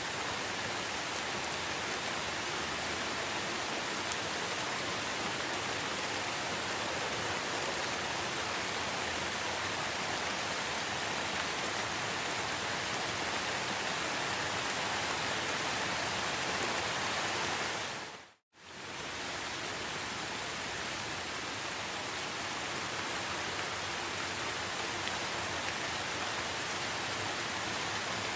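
Steady rainforest rain, an even hiss of rainfall with no distinct calls. About two-thirds of the way through it briefly dips to silence and fades back in.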